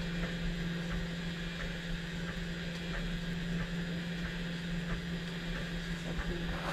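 Printrbot Play 3D printer running a print: a steady low hum from its motors and fan, with faint light ticks.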